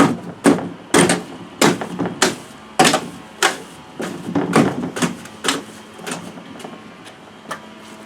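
A hand trowel or float scraping back and forth through wet surface-bonding cement, in sharp rhythmic strokes about two a second that grow weaker near the end.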